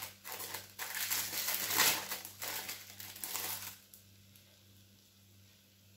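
Plastic wrapper of a processed cheese slice crinkling and tearing as it is peeled open, for just under four seconds, then stopping.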